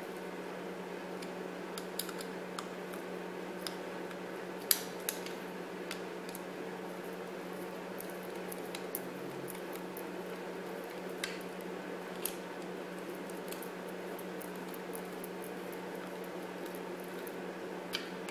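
Scattered small clicks and taps of a screwdriver working the terminal screws of an electrical plug, the sharpest about five seconds in, over a steady low hum.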